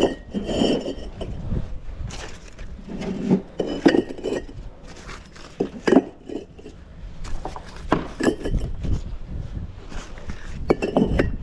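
Fired clay bricks clinking and knocking against one another as they are picked up and stacked by hand, a string of sharp clacks at irregular intervals.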